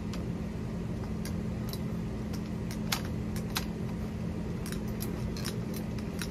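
Light metallic clicks and taps as 7/8-inch copper refrigerant line is positioned and clamped in a hand lever tube bender, a few irregular clicks each second, over a steady low hum.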